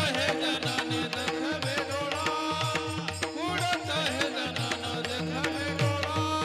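Indian-style music: a wavering, ornamented melodic line, most likely a singing voice, over a held drone and regular hand-drum strokes.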